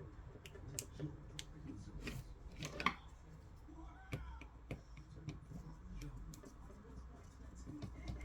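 Scattered sharp clicks and light taps from handling the parts of a Harman Kardon Esquire Mini speaker during disassembly, the loudest click about three seconds in.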